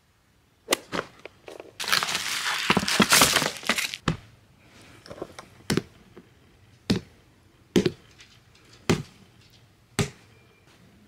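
A hand slapping a silicone Cinnamoroll night lamp, six sharp smacks about once a second, to switch on the tap-activated light. A couple of seconds of rustling come before the smacks.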